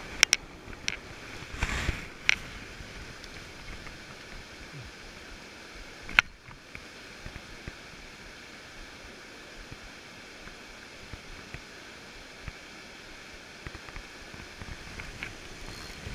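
Steady rushing water noise with several sharp clicks and knocks, the loudest about six seconds in, and a short swish a little under two seconds in.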